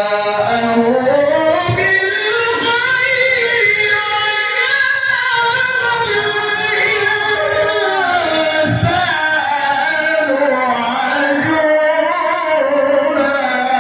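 A male reciter's voice in a long, ornamented melodic phrase of Quran recitation (tilawah), the pitch gliding and turning up and down in sustained melismatic runs.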